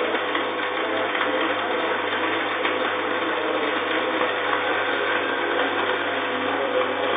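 Welding arc from a Clarke 115-amp welder, burning steadily with a continuous, fast, even crackle that does not break.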